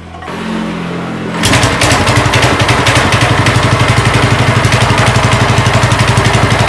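Motorcycle engine running close by: a softer steady hum, then about a second and a half in it comes on loud with a fast, even pulsing beat that holds steady.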